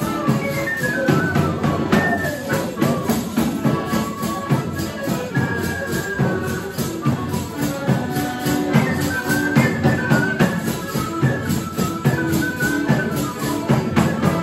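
Sicilian folk waltz played live on a zufolo (shepherd's fipple flute) carrying the melody over accordion, with a tambourine shaking and striking the beat.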